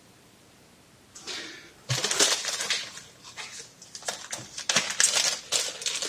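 Handling noise from parts being worked at a bench: rustling with scattered small clicks and knocks, starting about a second in.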